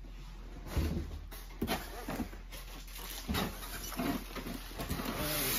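A large cardboard box being shifted and handled: a series of thumps and knocks of cardboard, with a hissy rustle of cardboard and packing near the end.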